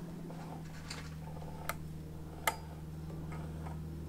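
A few sharp clicks as a model V-twin petrol engine is turned over slowly by hand, the loudest about two and a half seconds in, over a steady low hum.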